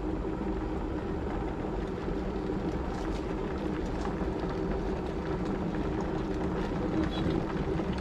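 Philips HD9318/21 electric kettle, filled to its 1.7-litre maximum, at the boil: a steady rumbling, bubbling noise.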